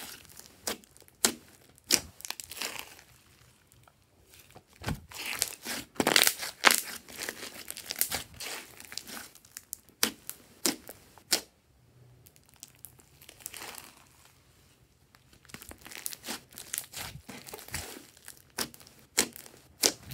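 Glossy slime being squished, pressed and stretched by hand, giving off irregular sticky crackles, pops and squelches in clusters, with quieter spells about four seconds in and again from about twelve to fifteen seconds.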